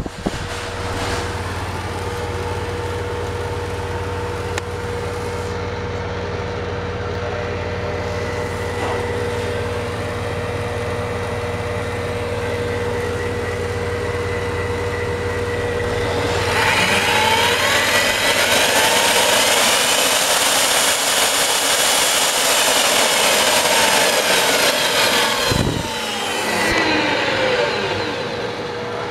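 Milwaukee 4209-1 magnetic drill press. A steady electrical hum comes first, with the base magnet switched on. About sixteen seconds in, the drill motor starts and spins up, then runs at speed for about nine seconds. A click marks the switch-off, and the motor winds down with a falling whine.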